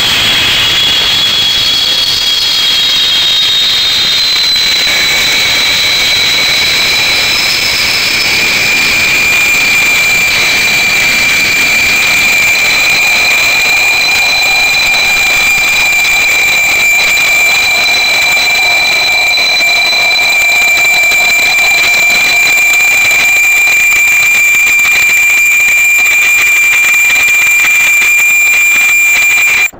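Škoda-built 556.0 class 2-10-0 steam locomotive letting off steam: a loud, steady hiss with high whistling tones that shift a few seconds in and then hold one steady high whistle.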